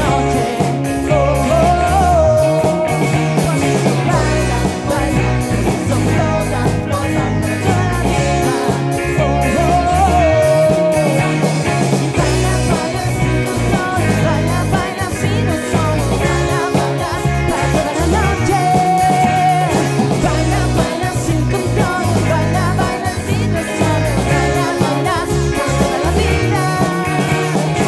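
A live rock band playing a song: electric guitars, keyboards and drums, with a lead singer singing over a steady beat.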